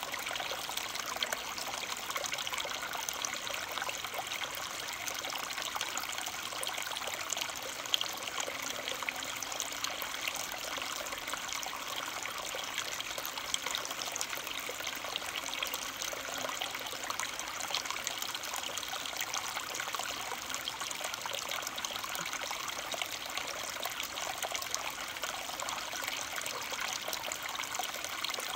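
Running water trickling steadily, a continuous splashing hiss with fine ticks and no change through the stretch.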